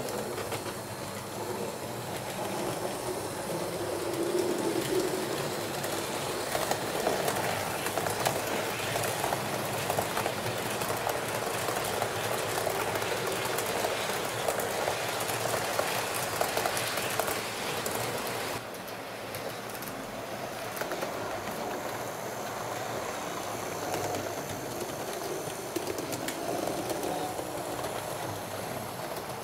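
HO-scale model TEE train running on track, a steady rattle of many small wheel clicks. The sound thins and drops abruptly about two-thirds of the way through.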